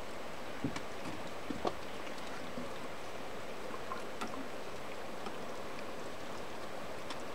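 Steady background hiss with a few faint, scattered clicks and taps, the loudest of them in the first two seconds.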